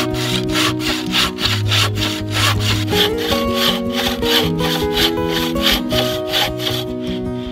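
Wooden-framed bow saw cutting through a log in a steady rhythm of push-and-pull strokes, heard over background music with a melody and bass line.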